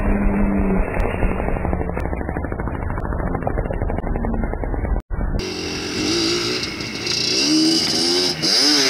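A motorcycle engine running. After a sudden cut, a Yamaha Banshee 350 quad's two-stroke twin engine revs up and down several times, its pitch rising and falling repeatedly as it rides.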